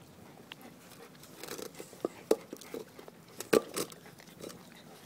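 Chinese crested puppies chewing and smacking on watermelon pieces from a hand, with irregular sharp wet clicks; two of the smacks, about two and three and a half seconds in, are louder than the rest.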